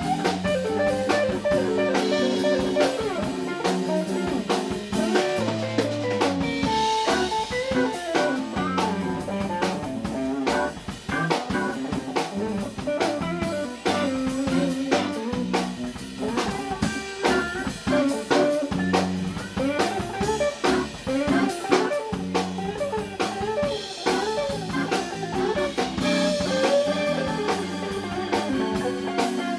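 Live band playing a tune together: Hammond B-3 organ, electric guitar, bass and drum kit.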